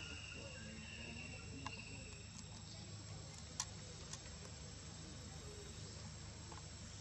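Steady, high-pitched insect chorus over a low, even background rumble, with a few faint clicks.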